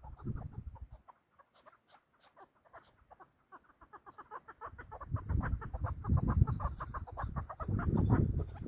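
Chukar partridge calling, a run of short clucking 'chuk' notes that speed up into a fast, steady series of several a second. A low rumble joins in from about halfway.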